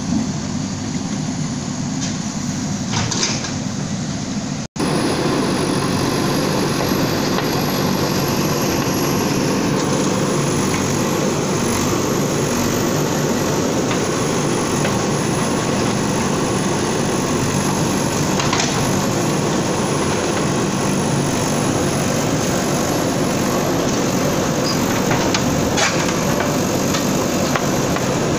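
Bulldozer running steadily under work, a heavy engine rumble with a noisy clatter over it and a few faint knocks. The sound cuts out for an instant about five seconds in and comes back a little louder.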